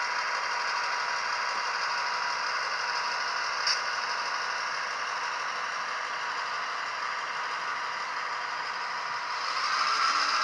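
HO-scale model EMD GP38 diesel locomotives with Soundtraxx Tsunami sound decoders: the decoder's simulated diesel engine running, played through a small onboard speaker with no bass, together with the model's wheels rattling along the track. A brief click comes about a third of the way through, and the sound swells near the end.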